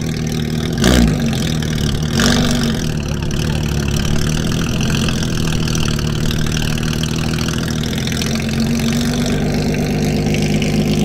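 Porsche 992 GT3 RS's naturally aspirated 4.0-litre flat-six through a straight-piped Soul exhaust, running at low revs with two short, sharp throttle blips, about a second in and just after two seconds, the first the loudest, the revs falling straight back each time. It then holds a steady, rumbling idle.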